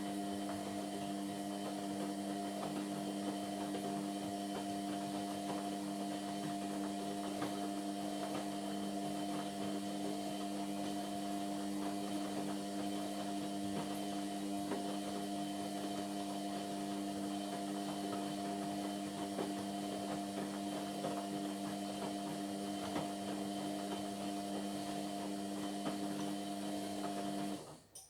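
Indesit MyTime washing machine running mid-cycle: a steady mechanical hum with a few held tones over a hiss, which cuts off abruptly near the end.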